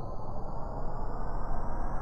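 Synthesized impact riser sound effect building up: a dense rumbling noise with thin tones above it gliding steadily upward in pitch, slowly getting louder.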